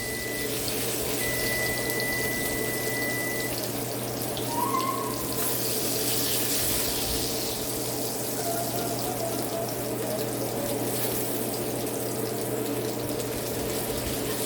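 Hot skillet of turkey burger patties sizzling steadily.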